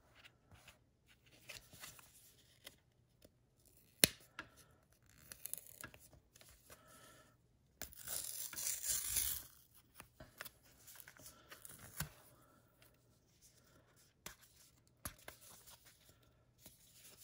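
Topps Allen & Ginter rip card, a thick layered trading card, being torn open by hand to free the mini card sealed inside. Soft rustling and scratching of card stock, a sharp snap about four seconds in, and a loud tear lasting over a second about eight seconds in.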